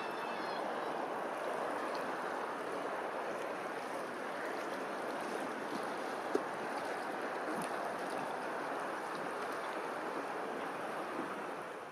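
Steady wash of water lapping on open water, with one brief click about six seconds in.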